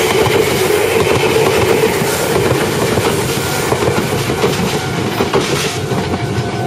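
Second-generation Meitetsu 5000 series electric train passing close by, its wheels clattering rapidly over the rail joints. The wheel squeal it came in with dies away within the first second or two.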